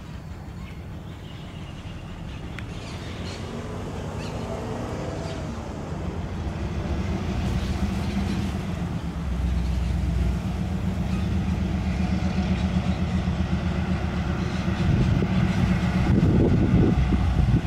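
Diesel freight locomotive hauling loaded coal wagons approaches at low speed, its engine growing steadily louder. Near the end, a quick rhythmic knocking of wheels over the rail joints comes in.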